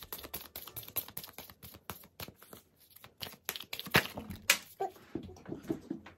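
A deck of oracle cards being shuffled by hand: a rapid run of light clicks and slaps as the cards drop onto each other, with two sharper snaps about four seconds in.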